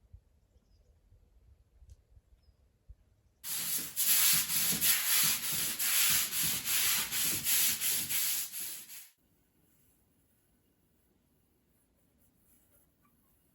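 Surface being scrubbed hard by hand: quick, even back-and-forth rubbing strokes, about three a second. They start a few seconds in and stop abruptly about five and a half seconds later.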